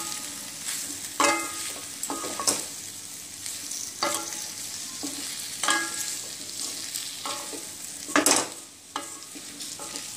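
A spatula stirring and tossing taro leaf pieces and onions frying in oil in a stainless steel kadai, over a steady sizzle. It scrapes and clinks against the pan every second or two, loudest late on.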